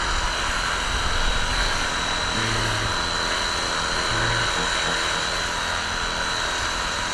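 Cordless electric pressure washer running steadily: the small pump motor gives a steady high whine over the hiss of the water jet spraying into the finned coil of an air-conditioning unit.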